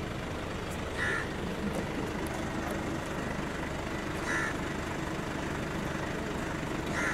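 A crow cawing three times, a few seconds apart, over steady street noise.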